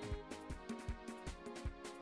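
Background music with a steady beat: repeated drum hits over held pitched notes.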